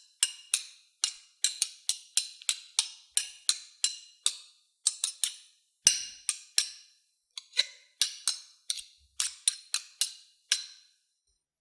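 A teaspoon and a knife clashed together again and again in an irregular run of sharp, ringing metal clinks, some in quick pairs, a foley imitation of a sword fight; the clinks stop about ten and a half seconds in.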